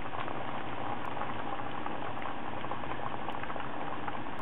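Mussels steaming in white wine at high heat, the liquid in the pot boiling steadily with a fine crackle of bubbles.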